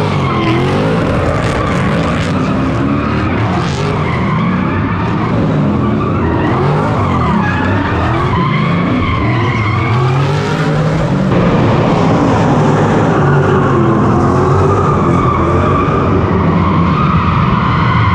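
V8-swapped Nissan S13 drift car's engine revving hard, its pitch rising and falling over and over as the driver works the throttle through a drift, with the tyres screeching as they slide.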